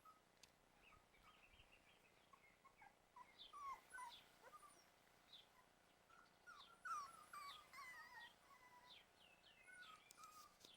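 Puppies whimpering and squeaking faintly in short, high, sliding cries that come in clusters, with the loudest cries about four seconds and seven seconds in.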